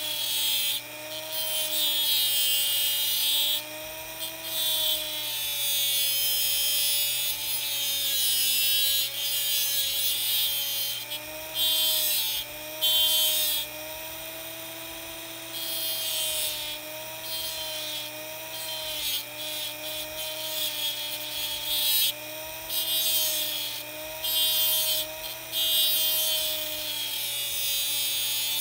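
Handheld rotary tool spinning a thin abrasive cut-off wheel into the hardened steel of an old broken screwdriver tip. The motor whines steadily, wavering in pitch as the wheel loads up. Over it comes a high grinding hiss in repeated bouts, broken by short pauses as the wheel is lifted off.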